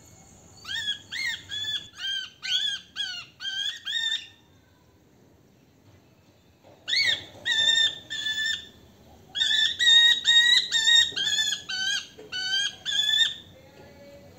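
Young parrot chicks giving repeated loud, shrill calls, each short and evenly pitched, in runs of several calls with a pause of a couple of seconds near the middle. These are begging calls from chicks whose crops are nearly empty.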